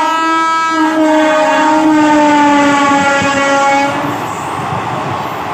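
Locomotive horn of the 11110 Lucknow–Jhansi Intercity Express sounding one long, loud blast, its pitch sinking slowly. It cuts off about four seconds in, leaving the rushing, clattering noise of the train running past.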